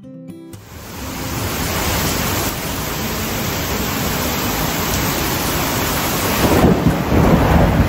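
Heavy rain pouring down in a steady, loud hiss, growing louder and deeper near the end.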